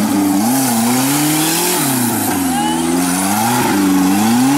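Off-road competition 4x4's engine revving up and dropping back, about three times over, as it spins its mud tyres and flings mud.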